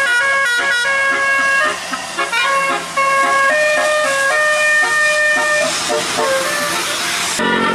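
Bus basuri musical horn playing a melody: loud held horn notes that step from pitch to pitch as a tune. A rushing noise builds under the notes near the end, and the sound changes abruptly just before the end.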